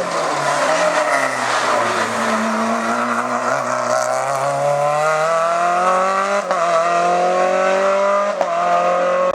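Hillclimb race car engine under hard acceleration, its note climbing steadily in pitch over several seconds, broken twice by a short sharp click.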